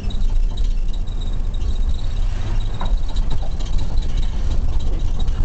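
Steady engine and road rumble inside a police car's cabin as it drives, with a faint high whine.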